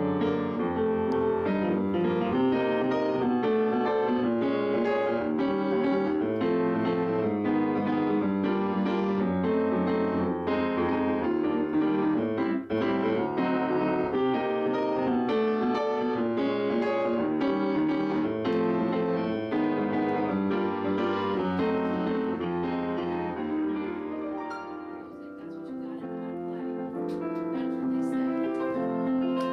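Upright piano being played, a continuous flow of notes and chords. The playing fades out briefly about 25 seconds in, and a new passage starts soon after.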